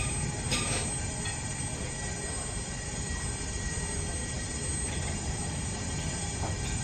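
Electric arc welding on a truck chassis: the steady crackling hiss of a stick-welding arc, holding at an even level.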